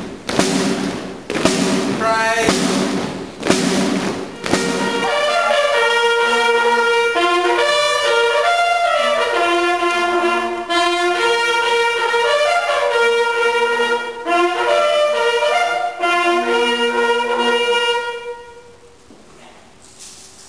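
A marching band's drums beat steadily for about five seconds, then brass instruments play a tune in sustained notes, stopping shortly before the end.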